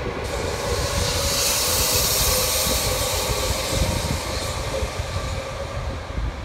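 Double-deck electric commuter train running past on the rails and moving away. A high hiss from the wheels swells over the first few seconds and then fades, over a steady hum and a low rumble.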